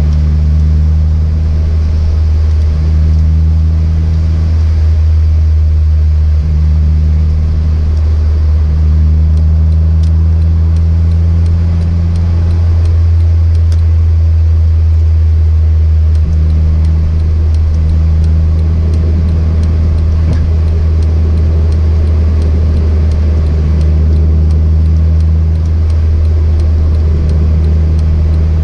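A car being driven, heard as a loud, steady low drone of engine and road noise, with a slightly higher hum that comes and goes every few seconds.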